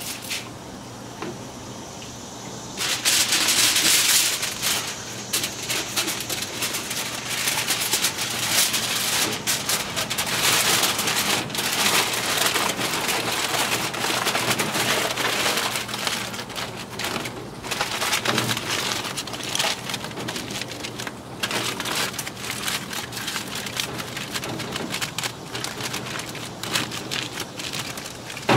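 Aluminium foil crinkling and crumpling as it is folded and pressed by hand tightly around a rack of smoked pork ribs. The crackle gets loud about three seconds in and then rises and falls unevenly with the handling.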